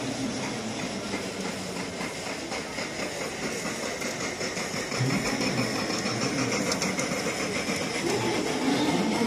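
A 5-inch gauge ride-on model train, a small black locomotive hauling a riding car, running along steel track, its wheels clicking over the rail joints over a steady background din.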